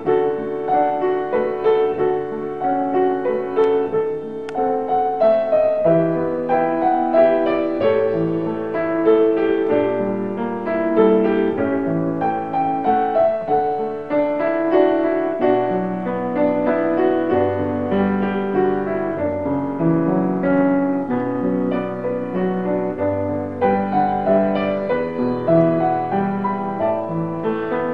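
Solo piano playing a hymn in chords at a steady, gentle pace.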